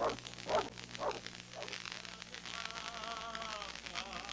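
A dog barking a few short times, then a drawn-out wavering pitched sound, over the steady hiss of an old film soundtrack.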